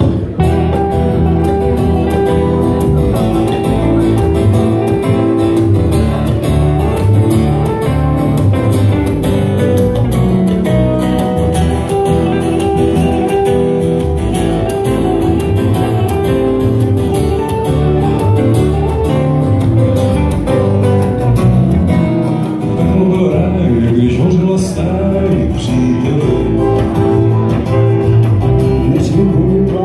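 Live folk band playing a song on acoustic guitars, a hollow-body electric guitar and upright double bass. The band comes in suddenly at the start.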